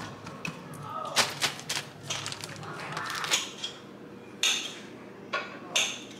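A string of short clicks, knocks and rustles from handling food and kitchen items while sandwiches are put together.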